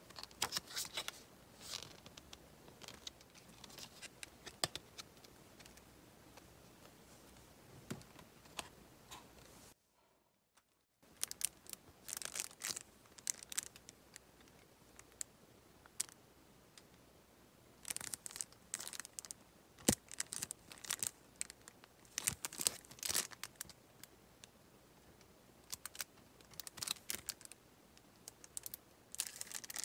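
Close-up rustling and crinkling of handled paper craft supplies: a small patterned paper pad being flipped through, then a carded sheet of adhesive dot stickers being picked up and turned. The crackle comes in short irregular spells, with a brief dead-silent gap about ten seconds in.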